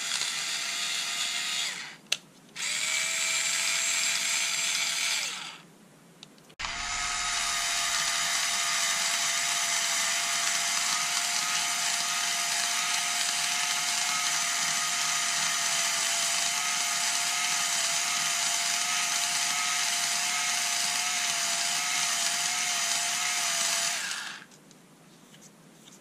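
Black & Decker 2.4-volt cordless screwdriver motor and gearbox whirring as it spins its shaft against a Scotch-Brite pad to polish it. There is a short run and a brief stop about two seconds in, another run of a few seconds, then one long steady run that cuts off shortly before the end.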